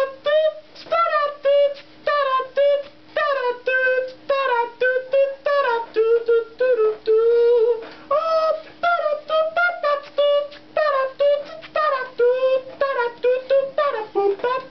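A man's voice singing without words: a quick run of short, high notes, several a second, many sliding up or down in pitch.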